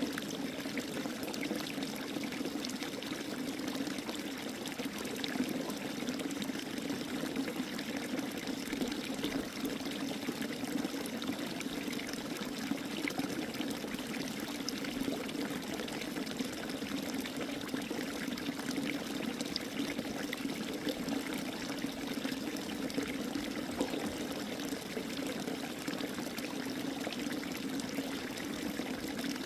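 Running water pouring and trickling steadily, without a break.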